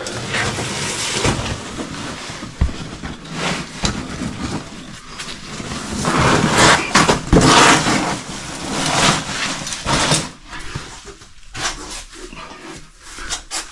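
A caver breathing hard and straining in irregular gusts while hauling himself up a climb.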